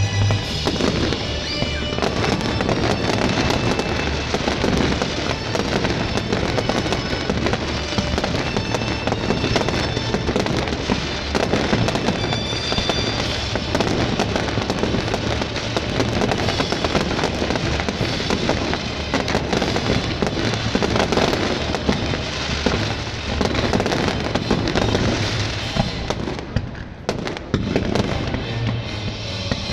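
Fireworks display firing continuously: a dense stream of bangs and crackles, with show music playing underneath. The crackling thins out briefly near the end.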